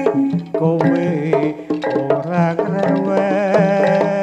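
Live jaranan accompaniment music: quick hand-drum strokes under a wavering, held melody line with vibrato and steady low sustained notes.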